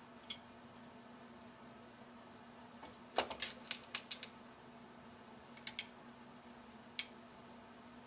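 Light clicks and taps of a small synchronous geared motor being handled and fitted against a thin sheet-metal mounting bracket: a single click just after the start, a quick run of taps around three to four seconds in, and a few more single clicks later.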